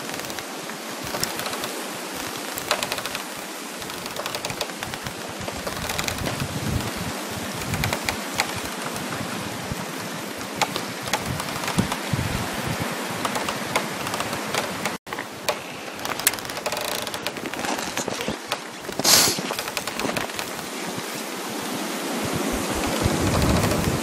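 Dense, continuous crackling of frost over a steady rush of wind. There is a split-second drop-out about fifteen seconds in, and a sharper crackle about four seconds later. The wind swells near the end.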